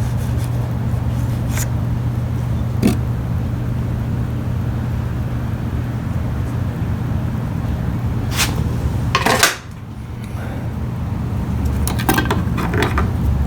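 Metal clinks and scrapes of tools and parts being handled on a Ryobi string trimmer's shaft and head during disassembly: a few separate knocks, the loudest about nine seconds in, with a short cluster near the end. A steady low hum runs underneath.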